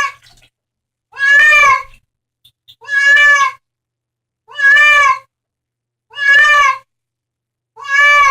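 A cat meowing over and over, loud, evenly spaced meows about one every second and a half, each with a slight rise and fall in pitch.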